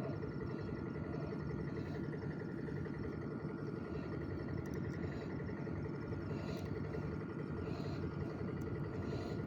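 A steady low drone of a running engine, with a faint steady whine above it and a few soft ticks.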